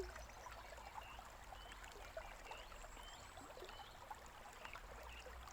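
A small stream babbling faintly and steadily, with a few faint, short bird chirps in the middle.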